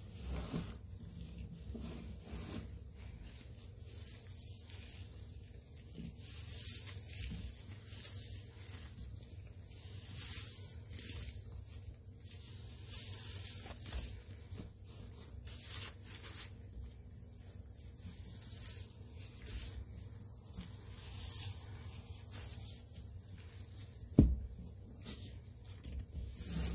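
Sponges squeezed and rubbed through dry Comet scouring powder with rubber-gloved hands, giving irregular rustling scrapes. There is one sharp knock near the end.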